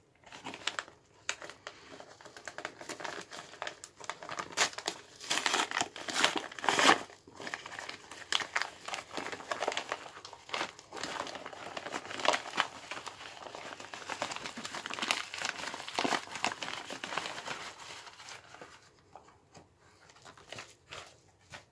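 Postal mailer bag being torn open and crumpled by hand: a run of crinkling and ripping, loudest about six to seven seconds in and dying away near the end.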